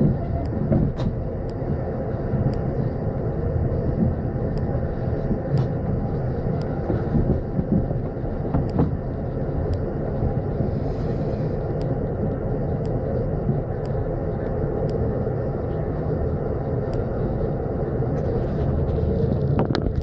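Steady low rumble of a moving vehicle heard from inside, with faint light clicks scattered through it.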